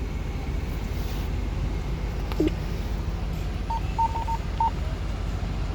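Two-way radio tones: a click about two and a half seconds in, then a quick run of short beeps about a second later, over a steady low hum.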